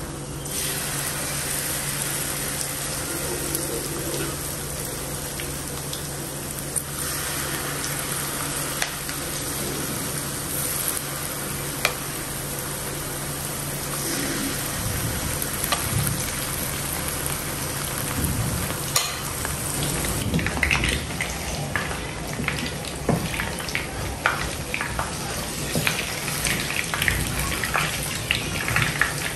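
Prawn-batter fritters (penaram udang) deep-frying in a pan of hot oil: a steady sizzle that swells as fresh spoonfuls of batter go in. In the second half a wooden spatula turns them, with sharper crackles and knocks.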